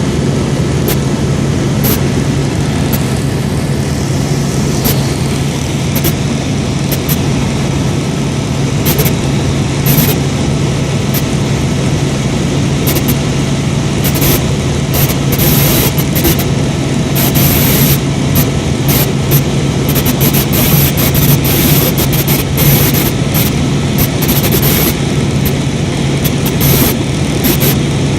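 Helicopter in flight: steady, loud rotor and engine noise with a constant low drone and frequent short crackles.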